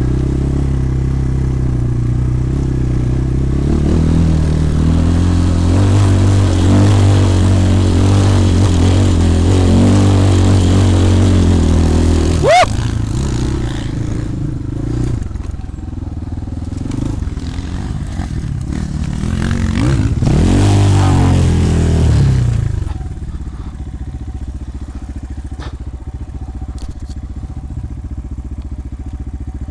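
250cc dirt bike engine running at steady throttle, with a sharp quick rev about midway, another rise in revs about two-thirds in, then settling to a lower, quieter run near the end.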